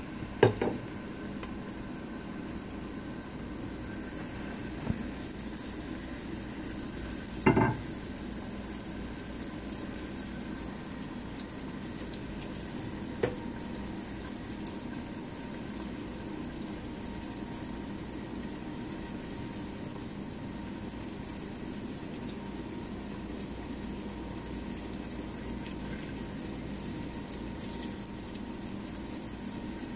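Sliced onions frying in hot oil in a stainless steel pot: a steady sizzle. A brief knock sounds about seven and a half seconds in, with a couple of faint clicks.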